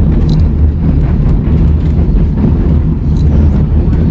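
White Pass & Yukon Route train running along the track: a steady, loud low rumble of the coach rolling on the rails, with a few faint clicks.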